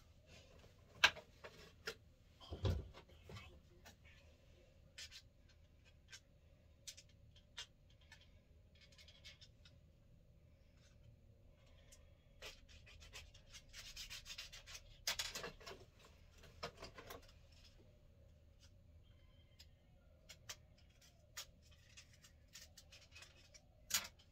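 Faint scattered clicks, taps and rubbing of small makeup items being handled, with a denser stretch of rubbing about halfway through and a sharper click near the end.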